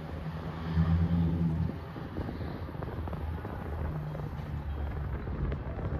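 Amtrak Acela Express trainset running away down the track after passing at speed: a low rumble of wheels on rail with a droning hum, strongest in the first couple of seconds.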